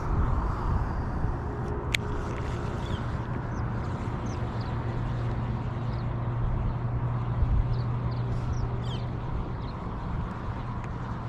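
Outdoor riverside ambience: a steady low hum under wind noise, with short high bird chirps scattered through the middle. There is a single sharp click about two seconds in.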